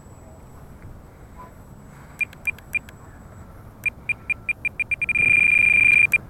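Electronic beeping at one high pitch: a few spaced short beeps, then a quicker run of beeps, then one long steady beep lasting about a second, after which the quick beeps start again.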